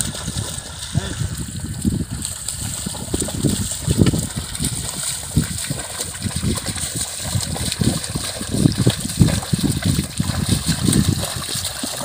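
A pair of Hallikar bullocks hauling a wooden plough through a flooded paddy field: water and mud sloshing and splashing around their hooves and the plough, in irregular surges every second or so.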